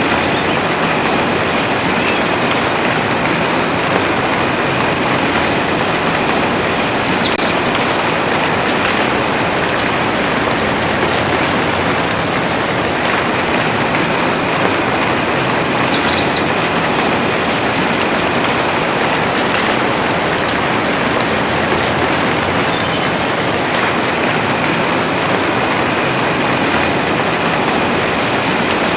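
Steady hiss of soft rain falling in a forest, with a continuous high-pitched drone running under it. Twice, a short falling whistle.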